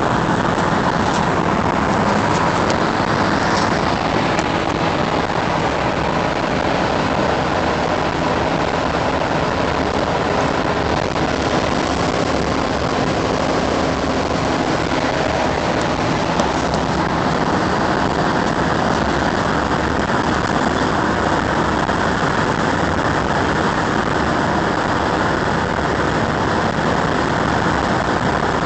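Steady road noise of a car driving at highway speed, heard from inside the cabin.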